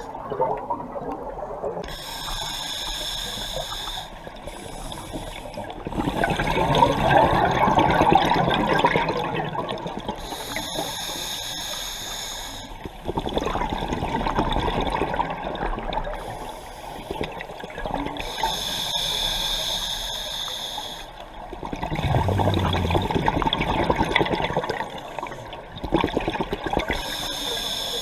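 Scuba diver breathing through a regulator underwater: a short hissing inhalation, then a longer burst of bubbling exhaled air, repeating about every eight seconds.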